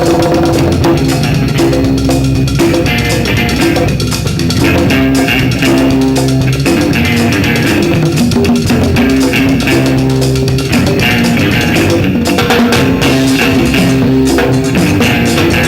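Live rock band playing an instrumental passage: electric guitar, bass guitar and drum kit, with no singing.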